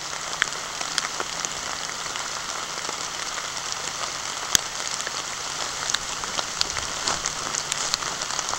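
Steady rain falling through bare woodland, a constant hiss sprinkled with sharp ticks of individual drops striking close by, some on the camera itself.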